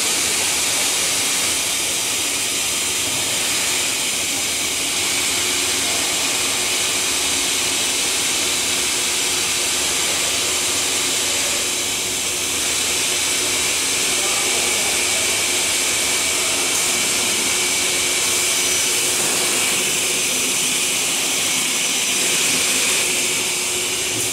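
Double-head cutting saw running, its two circular saw heads spinning with a steady, high-pitched hiss.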